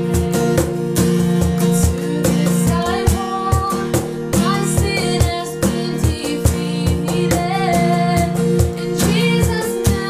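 A woman singing to a strummed acoustic guitar, with a Meinl cajon slapped by hand keeping a steady beat of low thumps.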